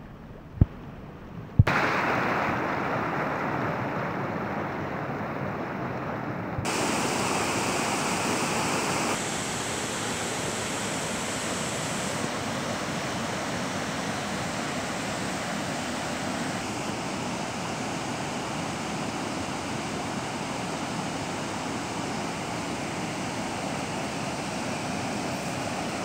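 Rushing water of a rocky mountain stream and small waterfall, a steady even rush. It comes in about two seconds in after a few knocks.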